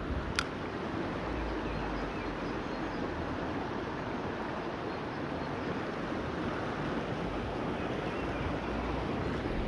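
Steady rush of a flowing river's current, with one short sharp click about half a second in.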